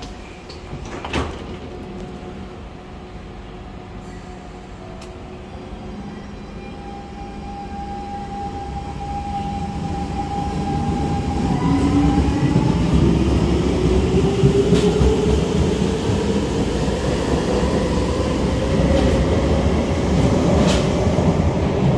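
Siemens C651 MRT train pulling out of the station: the traction motors' whine holds one steady pitch, then jumps and rises steadily as the train gathers speed, over a growing rumble of wheels on rail. A short knock about a second in.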